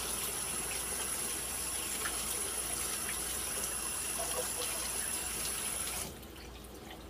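Kitchen tap running into a sink while a pot lid is rinsed under it; the water is shut off about six seconds in.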